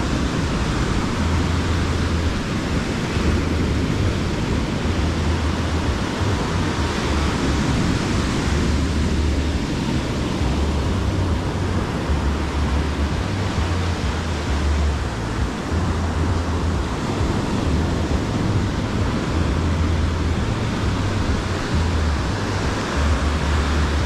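Sea surf breaking and washing up a sandy shore as a steady rushing noise that swells and eases, with wind buffeting the microphone in uneven low rumbles.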